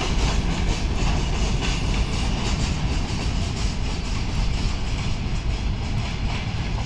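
Freight train rolling past: a steady, heavy rumble of wheels on rails with scattered clicks from the wheels crossing rail joints.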